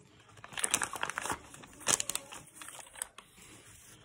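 Paper sandwich wrapper crinkling and rustling as it is handled, in a dense run of crackles from about half a second in and another sharp burst near two seconds, then a few lighter rustles.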